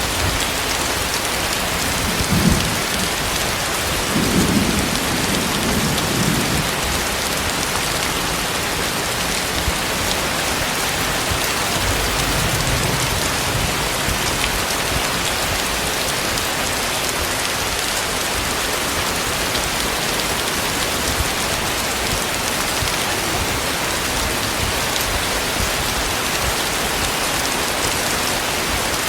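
Heavy rain falling steadily, a dense even hiss of drops on surfaces. Low rumbles of thunder swell briefly a few seconds in and again around twelve seconds.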